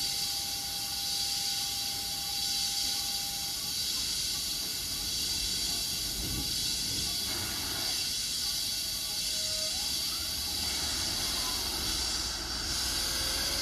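Chiba New Town Railway 9100-series electric train standing at the platform with a steady hiss. Near the end, faint rising electric whine tones begin as the train starts to pull away.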